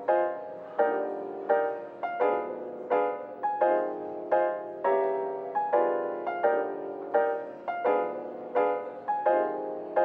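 Background music: soft piano notes and chords struck in a steady, gentle rhythm, about one every three-quarters of a second, each fading before the next.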